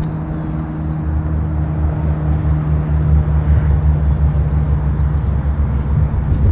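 A motor vehicle's engine running close by: a steady low hum that grows gradually louder.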